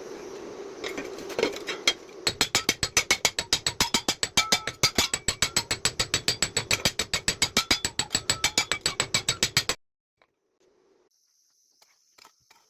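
Rapid, evenly spaced metallic knocking, about eight strikes a second, after a steady machine hum; it cuts off suddenly about ten seconds in.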